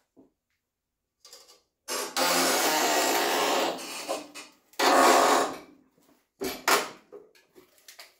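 Hinged sheet-metal bending brake folding a flange in thin sheet steel: a long grating scrape of metal on metal as the bar swings up, about two seconds in, then a second shorter scrape, and two sharp clanks near the end.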